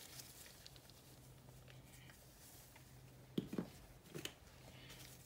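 Quiet room tone with a faint steady hum. A couple of soft knocks come about three and a half seconds in and another just after four, as a glass mixing bowl of seasoned flour is handled on a glass cooktop.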